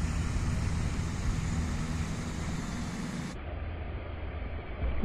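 Steady low outdoor rumble and hiss with no distinct events. It turns duller and a little quieter about three seconds in.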